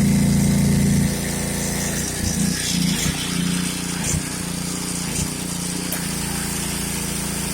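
Six-horsepower gas engine of a Karcher 3000 PSI pressure washer running under load. Its note drops about a second in, wavers for a few seconds, then settles to a steady hum.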